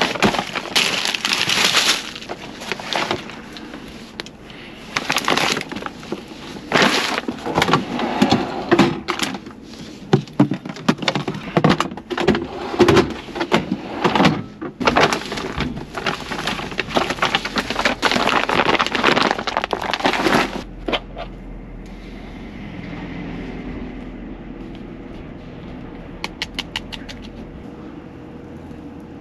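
Woven plastic shopping bag rustling and crinkling loudly and irregularly as it is rummaged through and items are pulled out, for about twenty seconds. Then it goes quiet apart from a low hum, with a quick run of light clicks near the end.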